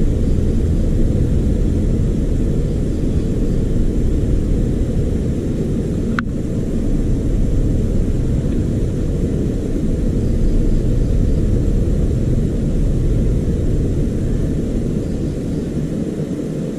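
Steady low rumble, with a single sharp click about six seconds in.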